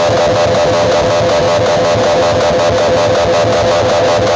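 Music played at very high volume through a large outdoor PA rig of stacked speaker cabinets, guitar-led and dense, an unbroken wall of sound.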